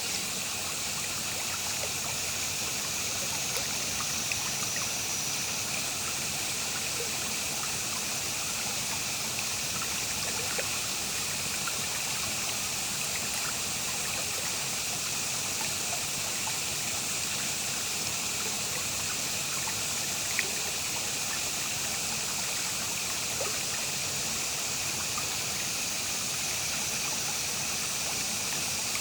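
Mountain spring water running and trickling over rocks in a steady, even rush, with small splashes throughout.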